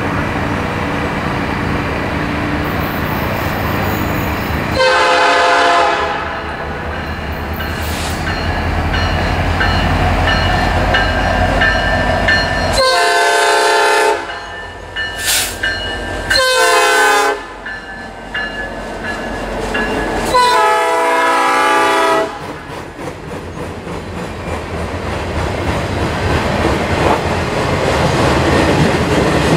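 A Norfolk Southern diesel freight locomotive, an EMD SD70M-2, sounds its multi-chime air horn in four blasts as it approaches and passes, the third blast shorter than the rest, over the rumble of its diesel engine. After it passes, the loaded flatcars roll by with a steady clickety-clack of wheels over the rail joints.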